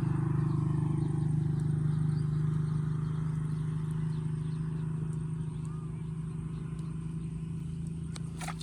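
A small engine running steadily with a fast, even chugging hum that slowly fades, with a short click near the end.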